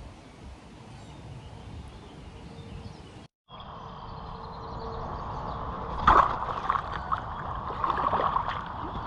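Steady outdoor noise, then from about six seconds in a sharp splash followed by irregular splashing and sloshing of water, typical of a carp thrashing on a fishing spear.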